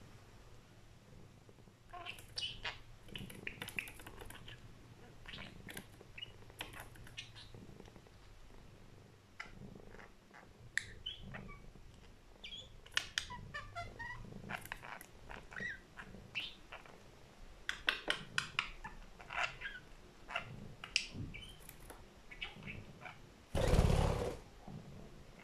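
Budgerigar chattering and warbling in quick short chirps and clicks. About a second before the end comes a brief loud flurry of wingbeats as it takes off.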